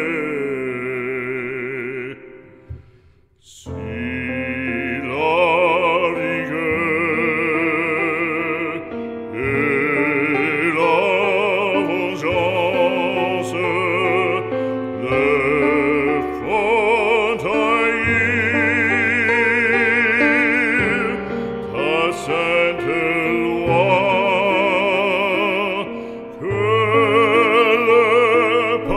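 Background music: operatic solo singing with strong vibrato over instrumental accompaniment. The music briefly drops out about three seconds in.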